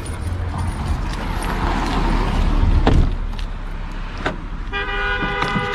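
A motor vehicle running with a low, steady rumble and a few sharp clicks. Near the end, a steady tone of several notes together sets in and holds.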